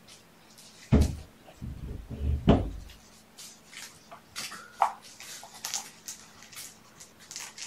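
Kittens at play around a plastic ball-track toy: a couple of heavy, deep thumps in the first few seconds, the loudest about a second in, then light scattered clicking and rattling of paws and the ball on plastic.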